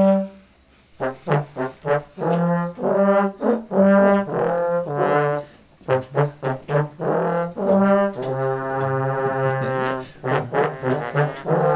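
A large group of trombones playing a tune together in short, punchy notes, with a long held chord about eight seconds in before the short notes return.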